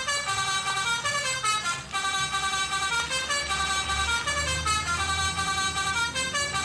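Telolet Basuri-type multi-tone bus horn playing its tune: several horn notes stepping up and down in quick succession, the pattern repeating.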